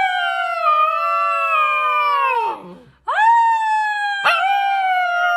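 A dog howling: two long howls, each held nearly level and then sliding down in pitch as it fades. The first is already under way and ends about two and a half seconds in; the second begins half a second later.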